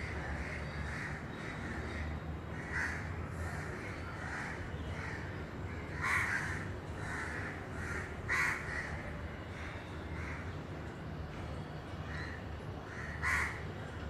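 A bird calling over and over, about twice a second, in short calls, with four louder, harsher calls standing out. A steady low hum runs underneath.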